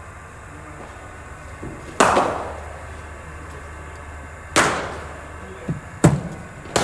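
Sharp cracks of cricket balls striking in an echoing indoor net hall over a steady low hum. There is one about two seconds in, another midway, and two in quick succession near the end.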